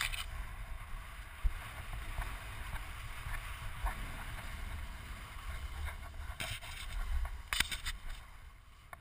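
Snowboard sliding and carving down firm spring snow: a changing hiss of the board scraping over the snow, over a steady low rumble of wind on the helmet-mounted microphone, with a few sharp knocks near the end.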